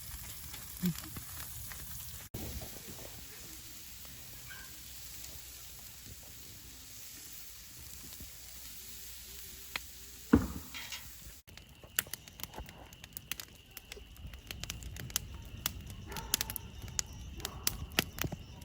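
Food sizzling and crackling over a campfire as hamburgers cook: a steady hiss, then, after a cut about eleven seconds in, denser sharp pops and crackles.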